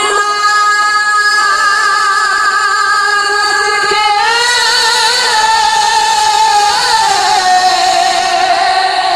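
A man singing Punjabi Sufi kalam in long, drawn-out held notes with a wavering vibrato. The note steps up about four seconds in and falls back lower about seven seconds in.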